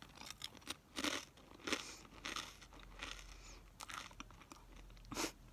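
Close-miked chewing of crunchy food, with irregular crunches and wet mouth clicks.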